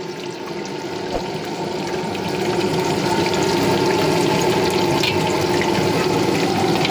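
Chicken leg pieces deep-frying in hot oil in an iron kadai: a steady sizzle that swells a little about two seconds in.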